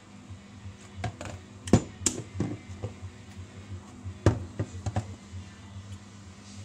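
Kitchen handling noises: a string of knocks and clinks as a metal spoon goes into a plastic measuring jug and things are set down on the worktop, two of them sharper and louder, over a steady low hum.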